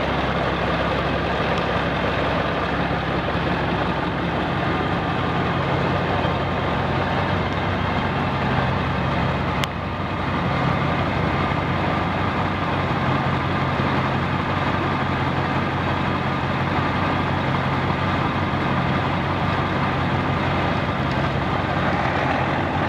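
Large diesel engine idling steadily, an even low hum with no revving.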